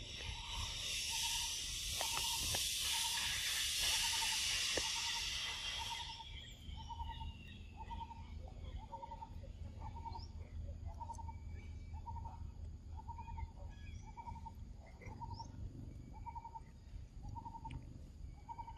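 Outdoor forest ambience: one short hooting note repeated steadily about one and a half times a second, typical of a calling bird. Over the first six seconds a loud high drone covers it, then dies away in a falling glide.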